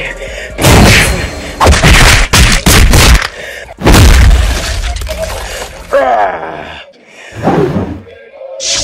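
Edited fight sound effects: a quick string of loud punch and impact hits, then a heavy crashing blow about four seconds in, followed by a character's pained vocal cry.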